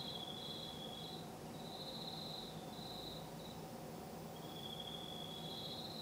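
Crickets trilling in repeated spells, two at slightly different pitches that overlap and alternate, with a short pause about midway, over a low steady background hum.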